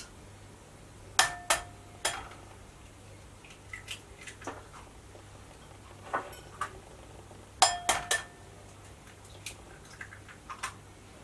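Two eggs cracked one after the other against a glass mixing bowl. A few sharp taps come about a second in, each leaving the glass ringing briefly. A second set of taps comes near eight seconds in, with a few faint clicks between the two sets.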